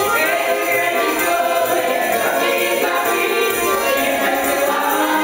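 Amateur women's folk choir singing a Russian folk song together, with a jingling tambourine-like beat in the accompaniment.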